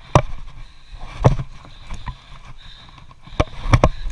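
Footsteps and loose shale shifting underfoot on a steep rocky slope: a few sharp knocks and scuffs, the last two close together near the end.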